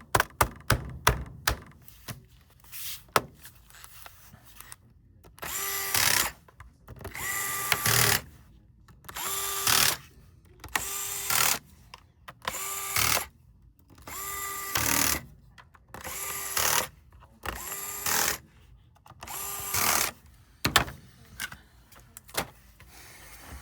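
Small electric screwdriver running in about nine short bursts of a second or so each, driving in the laptop's bottom-cover screws. A few sharp clicks near the start.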